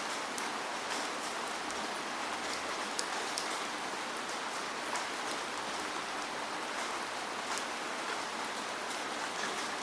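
Steady falling rain: an even hiss with scattered sharper drop impacts.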